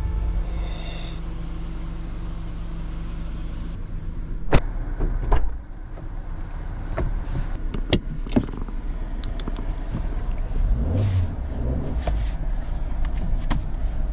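Suzuki Jimny JB74 running, a steady low engine hum. Several sharp clicks or knocks come between about four and nine seconds in, and one more near the end.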